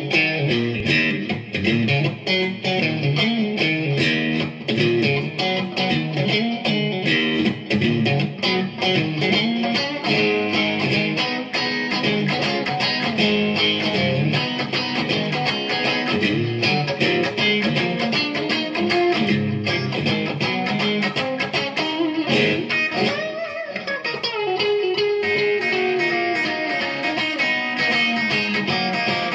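Electric guitar (a Fender Stratocaster through a Line 6 POD HD500 amp-modeler) played continuously in a crunch tone, lightly overdriven rather than fully distorted, with quick runs of picked notes. About three-quarters of the way through, a note slides down in pitch.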